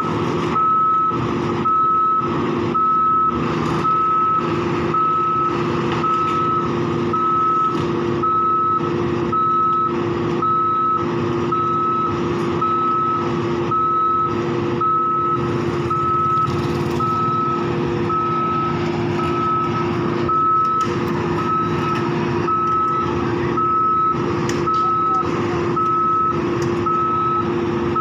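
Sany rotary drilling rig's warning alarm beeping steadily, about once a second, over the machine's diesel engine running with a steady hum.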